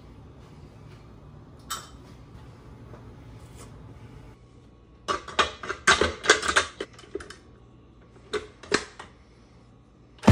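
Metal clicks and clattering as a stainless steel bowl and whisk are fitted to a KitchenAid stand mixer: a quick run of knocks about five seconds in, then two single knocks a couple of seconds later.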